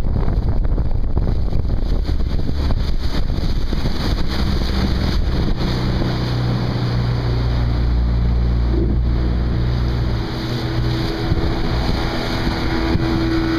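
Motorboat running fast on board, with water rushing and wind buffeting the microphone. About four seconds in, the buffeting eases and the engine's steady drone comes through more clearly.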